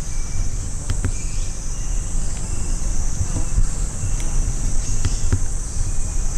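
Steady high-pitched buzz of an insect chorus over a constant low rumble, with a few short higher chirps and several sharp clicks.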